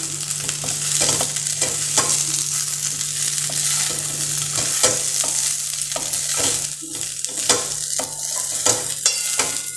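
Spatula stirring and tossing steamed muthiya pieces in hot oil in a stainless steel kadhai: a steady sizzle, broken by irregular scrapes and taps of the spatula against the pan.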